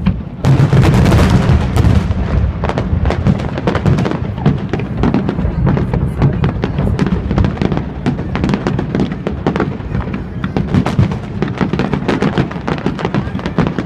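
Aerial fireworks shells bursting in rapid succession. A dense volley of bangs starts about half a second in, followed by a continuous run of many overlapping bangs and crackles.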